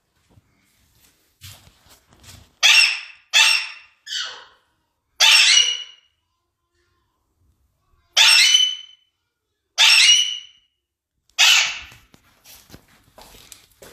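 Alexandrine parakeets calling loudly: about seven separate calls, each under a second long, coming in irregular bursts with a pause of a couple of seconds in the middle.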